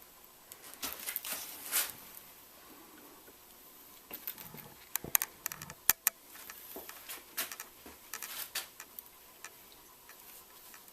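Irregular clicks, light knocks and rattles of metal strut parts (new shock, spring, washers) being handled and fitted together by hand, sharpest between about four and six seconds in.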